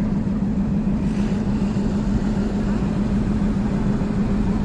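An engine running steadily at constant speed, a low, unchanging hum with no revving.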